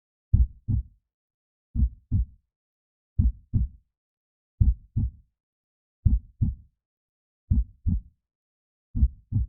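Heartbeat: a slow, even lub-dub, two low thumps close together, repeating about every 1.4 seconds, seven times, with silence between the beats.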